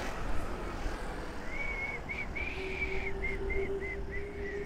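A run of about eight short whistled notes, some held longer than others, the last few slightly lower in pitch, over a steady low rumble.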